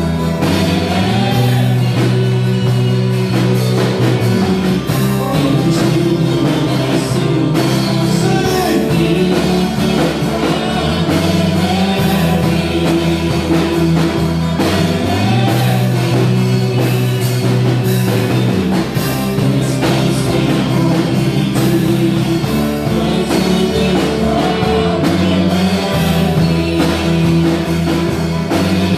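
Rock-style band music with singing, drum kit and guitar over a steady beat, the bass notes changing every few seconds.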